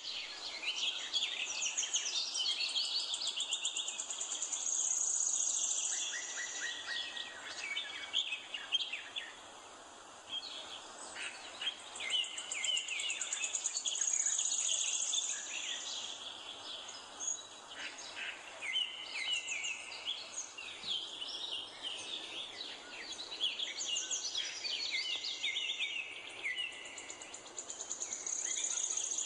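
A chorus of several songbirds singing and chirping, overlapping throughout, with a few high trills held for a second or two now and then.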